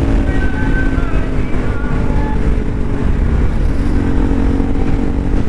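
Kawasaki Z900's inline-four engine running at a steady speed through its stock exhaust, over heavy low wind rumble on the rider's microphone.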